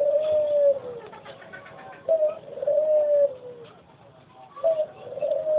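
A cooing call repeated three times, about every two and a half seconds, each a short note followed by a longer, slightly falling one.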